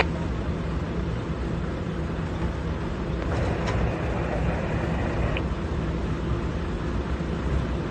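Heavy diesel engine running steadily with an even low hum.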